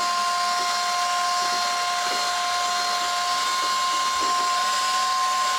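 A small electric motor running steadily: a whine with two steady tones over an airy hiss.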